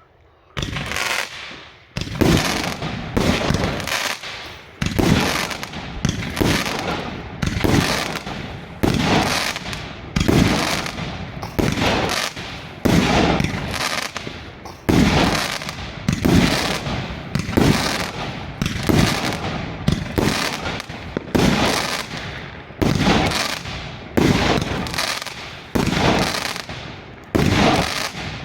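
Svea Fireworks 117X50 firework cake firing shot after shot, about one a second, each a sharp, heavy bang that dies away before the next.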